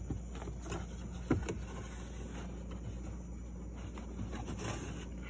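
Faint scraping and clicks of a new cabin air filter being slid into its plastic housing behind a glove box, with one sharper knock about a second in, over a steady low hum.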